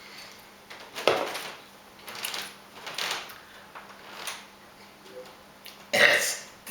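A woman belching letters of the alphabet in French: a string of short burps, the loudest about a second in and another near the end.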